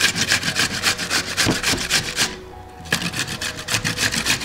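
A whole cucumber being grated on a stainless-steel box grater: quick rasping strokes, about five a second, with a short break about halfway through.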